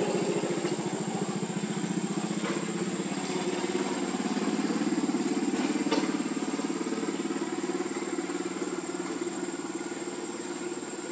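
A small engine running steadily at idle, with a faint click or two.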